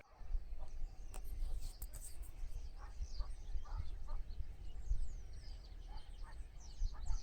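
Outdoor ambience: birds chirping over a steady low rumble.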